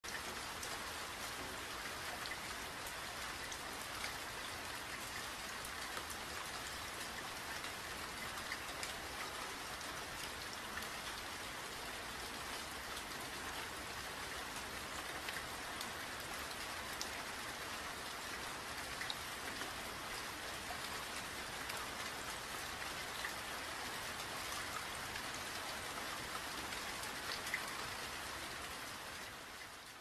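Steady patter of light rain, many small drops ticking, fading out near the end.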